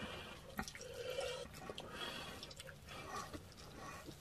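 Quiet, wet eating sounds from salmon-head sinigang, a sour broth: soft chewing and sipping, with scattered small clicks.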